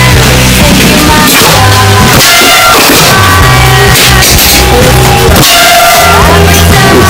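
Loud rock music with drums and guitar.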